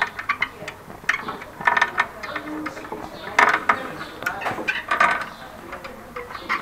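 Home-made rotisserie spit turning on miniature ball bearings, its mechanism clicking and rattling in short bursts about every one and a half to two seconds, three bursts in all.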